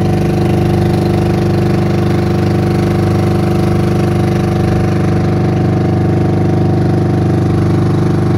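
Engine of a small outrigger fishing boat running steadily under way, an even drone that holds the same speed throughout.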